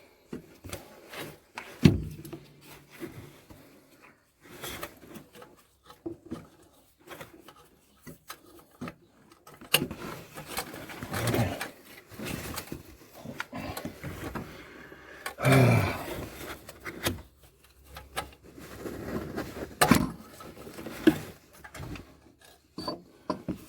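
Hands and tools working on parts in a van's engine bay: scattered knocks and clicks with stretches of scraping and rubbing, the loudest knocks about 2 s in, around 16 s and around 20 s.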